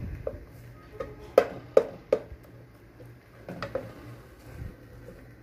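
Wooden spoon stirring thick mashed potato in an aluminium pot, knocking against the pot's side several times at an uneven pace, the loudest knocks coming between about one and a half and two seconds in.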